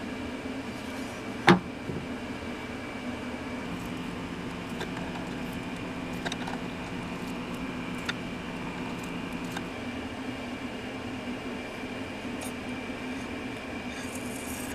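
Steady mechanical hum of a running machine, with one sharp knock about one and a half seconds in and a few faint taps later.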